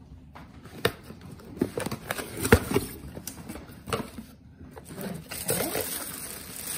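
Cardboard box being opened: a few sharp knocks and taps as the lid and flaps are handled, the loudest about two and a half seconds in. From about five seconds in, tissue paper rustles and crinkles as hands part it.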